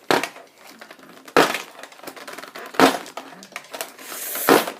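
Four sharp, clattering knocks of hard plastic, about a second and a half apart, with a hiss swelling just before the last one.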